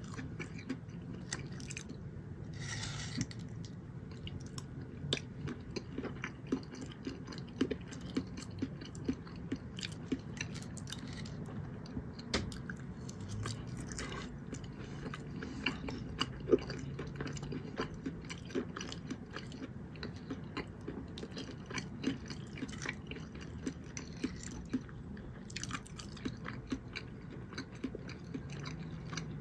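Close-miked chewing and mouth sounds of a meal, with many small, wet clicks and smacks throughout. There is a brief noisy rush about three seconds in and another near the end.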